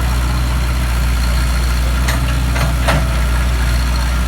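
Diesel engine of a Sumitomo SH60 mini excavator running steadily with a deep hum, with a few short knocks or clanks about two to three seconds in.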